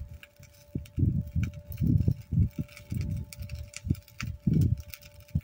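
Wind buffeting the microphone in irregular low rumbling gusts, with a faint steady hum throughout and scattered faint ticks.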